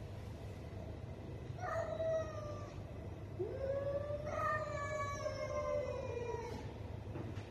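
Domestic cats caterwauling in an aggressive face-off: one long drawn-out yowl about one and a half seconds in, then a longer one that rises, holds for about three seconds and sags in pitch before trailing off.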